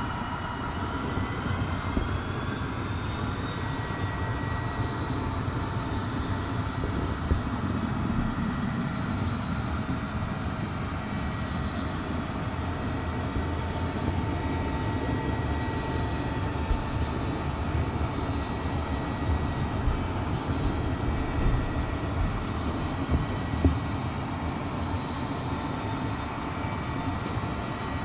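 Train running, a steady rumble with a faint high whine held at a steady pitch and a few sharp clicks toward the end.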